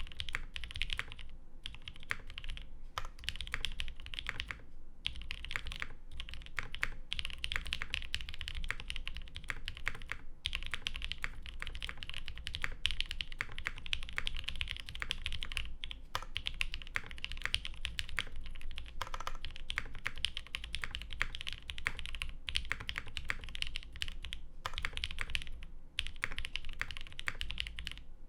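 Fast, steady typing on a Mode SixtyFive custom mechanical keyboard with lubed 62g Creamsicle switches, a carbon fiber half-plate in an isolated top mount, and GMK keycaps, with no sound dampening. The typing stops for a moment a few times.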